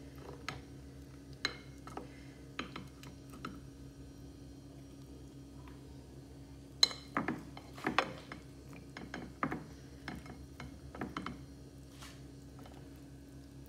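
Cutlery clinking and scraping on a plate as food is moved around: scattered clicks and clinks, the sharpest about seven seconds in, followed by a busier run of them, over a steady low hum.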